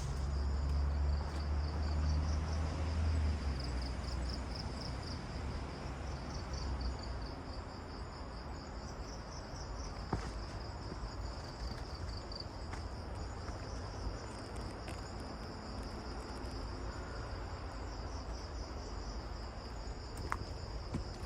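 Night-time insect chorus: a steady, high, pulsing trill that runs on without a break. A low rumble sits under it for the first few seconds, and a few faint clicks come through later.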